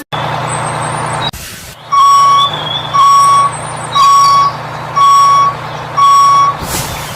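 Truck reversing alarm beeping five times, about once a second, over a steady engine rumble, with a short hiss about a second in.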